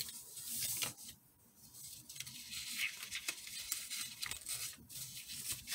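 Paper rustling and crinkling as a cut paper sewing pattern is handled and folded back on itself, with a brief lull about a second in.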